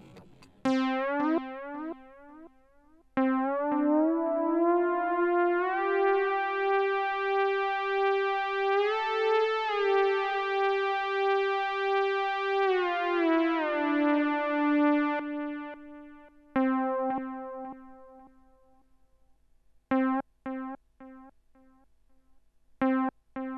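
Synthesizer playing an improvised line. It opens with short repeated notes that die away like echoes. A long held note then slides up in pitch, wavers, slides back down and fades out about two-thirds of the way in. Near the end come short staccato notes, each repeating more and more faintly.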